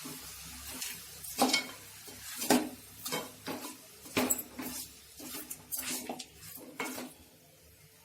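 Chicken pieces being stirred in a frying pan with a spoon: repeated scrapes and knocks of the spoon against the pan over sizzling. The stirring stops about seven seconds in.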